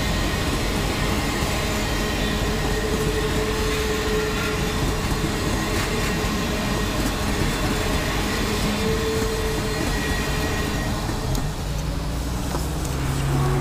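Union Pacific steam excursion train (Big Boy 4014 with 844) running past, a steady dense rumble of the train on the rails. A brief higher tone rises out of it a couple of times.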